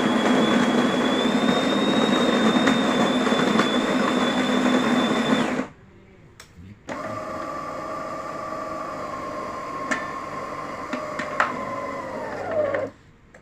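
Internal motors of a DeLonghi Magnifica S ECAM22.110 espresso machine running in a service test of its general alarm. First a loud motor runs with a steady high whine for about six seconds and cuts off. After a brief pause a quieter motor runs for about six seconds with a few clicks, then winds down in pitch and stops.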